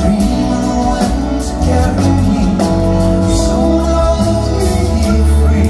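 Live band playing a slow pop ballad: sustained keyboard chords over bass, with drums and repeated cymbal hits.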